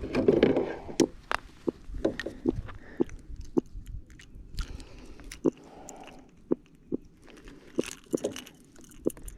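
Irregular clicks, taps and a brief rustle near the start from unhooking a just-landed trout by hand in a kayak: lure, hooks and fish knocking together.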